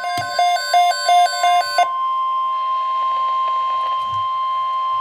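Several NOAA weather radios sounding their alert alarms, a fast repeating beeping that cuts off about two seconds in. Under it, the steady 1050 Hz warning alarm tone of the weather radio broadcast holds on alone: the signal that a severe thunderstorm watch message is about to be read.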